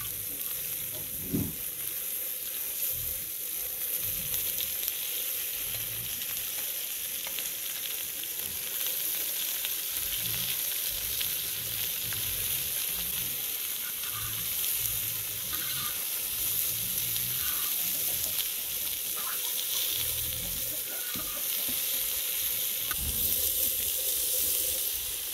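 Beef rump steaks, onion and red peppers sizzling steadily in hot oil in a talandara, a wide steel pan over a wood fire, as they are stirred with metal tongs; a sharp knock about a second in.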